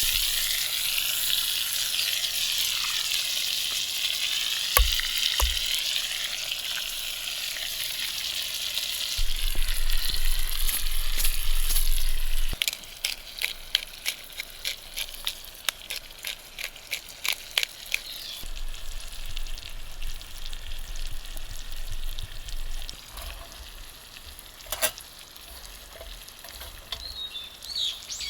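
Food frying in a pan over a fire: a loud steady sizzle that drops off suddenly about halfway through, leaving a softer sizzle with quick pops and crackles. A bird chirps near the end.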